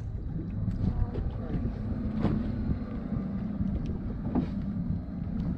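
Wind buffeting the microphone over a low rumble from the water around the boat, with a few faint clicks, one about two seconds in and another about four seconds in.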